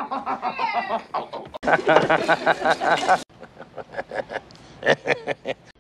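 A man laughing in three different laughs cut abruptly one after another, the middle one the loudest, a quick, evenly rhythmic ha-ha-ha, the last a run of shorter, quieter chuckles.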